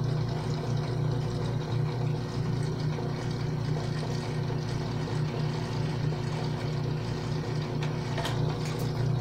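Benchtop drill press motor running with a steady hum as the bit is fed down into steel, cutting a hole at a feed meant to peel off one continuous pigtail chip. A few light ticks come about eight seconds in.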